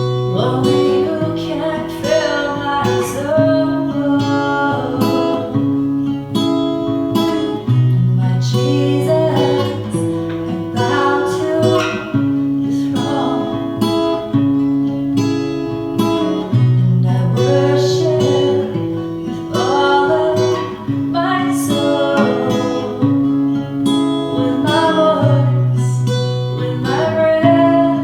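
Acoustic guitar strummed through a repeating chord progression, with a woman's singing voice over it.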